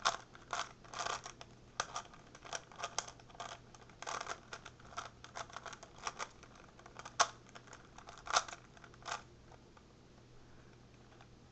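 A 3x3 speedcube being scrambled by hand: quick, irregular clicks of the plastic layers turning, stopping about nine seconds in.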